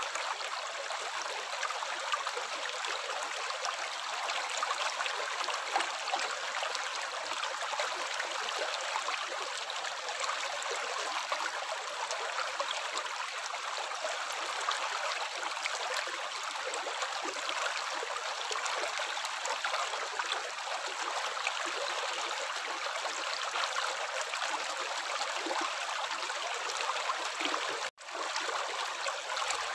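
Water running steadily, a continuous trickling hiss with no low rumble; it cuts out for an instant near the end and resumes.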